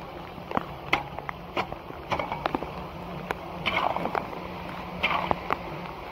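Waterlogged leaves being scraped and dragged through shallow floodwater on pavement by a hand tool, with splashing and frequent sharp clicks and knocks, over a steady low hum.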